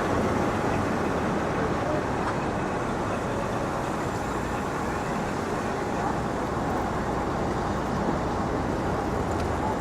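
Steady city street noise: road traffic running past in a constant, even hum.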